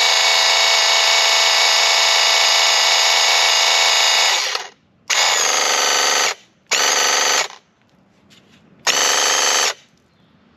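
Battery-powered piston pump of a Graco Ultimate QuickShot airless paint sprayer buzzing while it sprays water, running for about five seconds, then in three shorter bursts as the gun's trigger is pulled and released.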